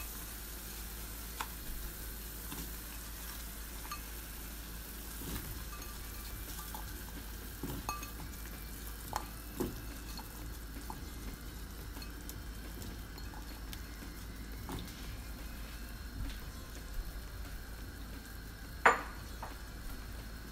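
Saucepan of broth simmering on a gas stove with a steady faint hiss, while chunks of radish are dropped in by hand, making scattered soft clinks and plops; a sharper clink comes near the end.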